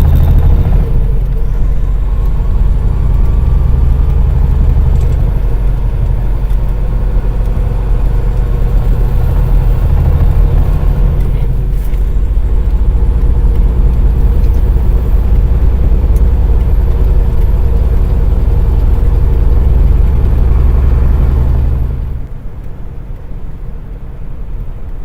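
Cummins ISX diesel engine of a Peterbilt truck running under way, a loud steady low drone heard from inside the cab. The drone drops off sharply near the end.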